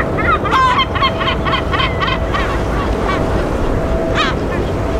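A bird calling in a rapid run of about ten loud, repeated calls over the first two seconds, with one more call near the end, over a steady rush of background noise and a faint steady hum.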